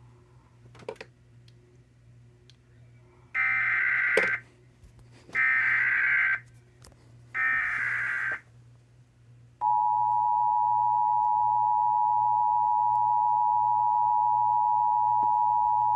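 Emergency Alert System alert coming in: three SAME header data bursts, each a buzzy, warbling screech about a second long with a second's gap between them. About ten seconds in, the steady two-tone EAS attention signal starts and holds. Together they announce the start of a severe thunderstorm warning.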